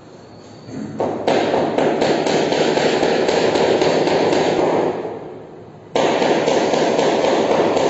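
Chalk writing on a blackboard: two stretches of gritty scraping and tapping. The first starts about a second in and fades around five seconds; the second starts suddenly at six seconds.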